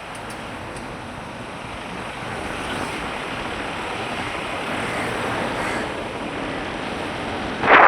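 Steady road and wind noise from travelling along a road in traffic. A sudden, much louder rush of noise starts near the end.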